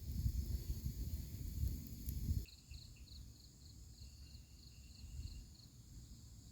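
Night insects, crickets, trilling steadily at a high pitch. For the first couple of seconds a low rumbling noise sits under them, then it drops away abruptly. After that a run of chirps, about four a second, repeats for a few seconds.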